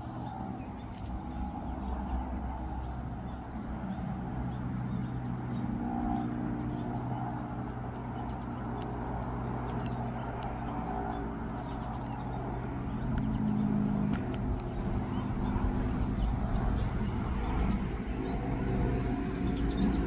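A steady low motor drone, growing a little louder in the second half, with faint high bird chirps scattered over it.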